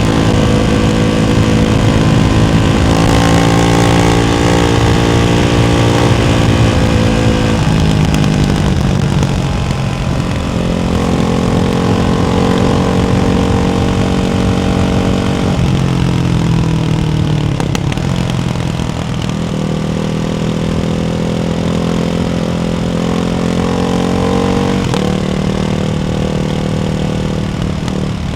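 Ducati Hypermotard 698's single-cylinder engine running through a baffled Termignoni exhaust. It holds a steady engine speed, then steps down or up to a new one every few seconds, as it would with throttle changes and gear shifts on a ride.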